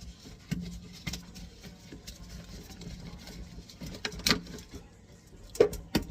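Scattered knocks and clicks of drain pipes and fittings being handled as the plumbing under a kitchen sink is taken apart. The sharpest knocks come about half a second in, just after four seconds, and twice near the end.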